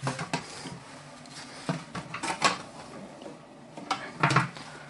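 Scattered short knocks and clinks of hard objects being handled, several separate sharp sounds with the loudest pair near the end, in a small tiled room.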